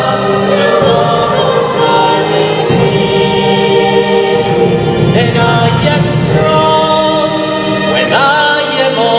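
Mixed choir singing a slow, sustained piece with a male soloist at a microphone, accompanied by harp and strings.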